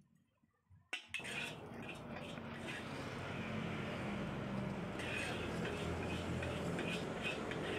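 Metal spatula scraping and clanking in a steel wok as fried noodles are scooped out and portioned, repeated sharp scrapes over a steady rushing noise that starts suddenly about a second in.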